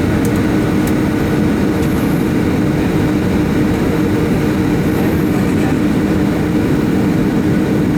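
Boeing 757-200 jet engines running, heard inside the cabin as a steady, unchanging low drone with a steady hum.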